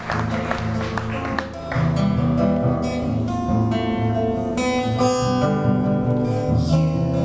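Acoustic guitar strumming chords, an instrumental passage with no singing.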